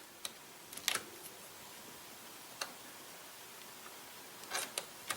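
Wire cutters snipping and trimming a wire: several short, sharp clicks spaced unevenly, the loudest about a second in and near the end.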